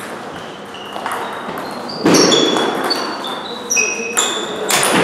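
Table tennis balls clicking on tables and bats across a hall with several tables in play: many short, ringing pings at different pitches, several a second, with louder sharp knocks about two seconds in and near the end.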